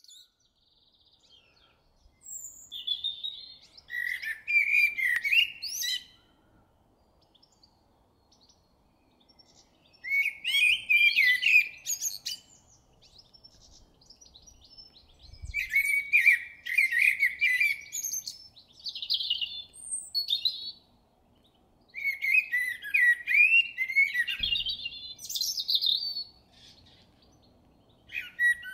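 Eurasian blackbird singing: a series of song phrases, each a few seconds long, with pauses of a few seconds between them.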